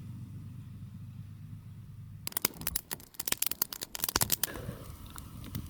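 A low steady rumble, then from about two seconds in a dense, irregular crunching of boots walking on frozen snow, thinning out after a couple of seconds.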